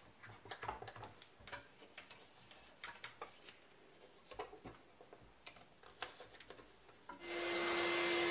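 Faint scattered clicks and rustles of duct tape being pulled and pressed onto a wooden dust hood. About seven seconds in, the shop vacuum hooked to the hood starts and runs with a steady rushing hiss and a constant hum.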